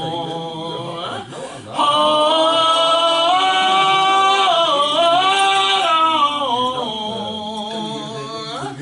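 Voices singing a gospel song, holding long drawn-out notes that bend slowly in pitch, with a brief break about a second and a half in.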